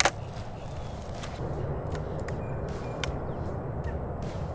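A .22 pellet air rifle fires once with a sharp snap at the very start. After it comes a steady low rumble with a few faint ticks.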